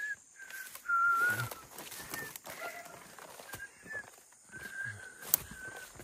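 Birds calling with a series of short, clear whistled notes, the loudest and longest about a second in, over light rustling and clicks in the undergrowth; a single sharp click near the end.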